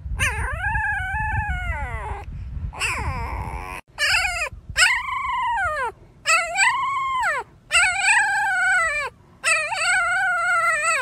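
Very young husky puppies howling: a run of about six short, high-pitched howls, each rising and then falling in pitch, with brief gaps between them.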